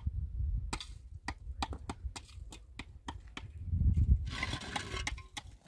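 A string of sharp, irregular clicks and knocks, with a brief scraping rustle about four seconds in, over a low rumble.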